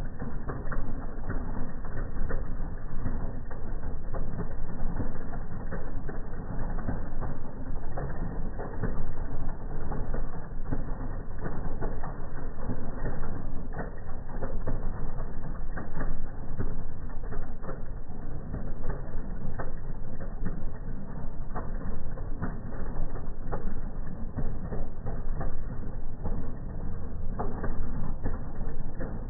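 Chevy S10 drag truck's engine idling at the start line, heard slowed down in slow-motion playback: a deep, choppy rumble with many rapid, irregular pops.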